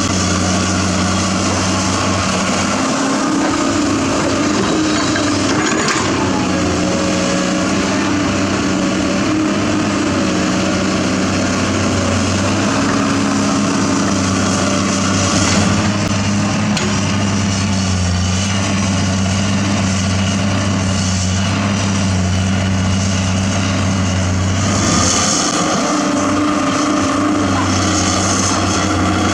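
Diesel engine of heavy earthmoving machinery running steadily at a construction site, its pitch shifting slightly as it works. The low engine note drops away briefly about 25 seconds in.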